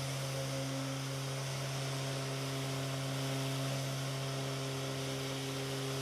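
Festool random orbit sander running steadily with a low hum and sanding hiss, its pad working the bevelled edge of a walnut board down to a tape line.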